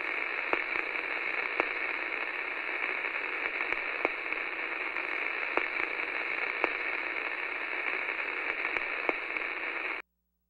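Steady hiss of static with scattered crackles and pops, a pop every second or so, cutting off suddenly near the end.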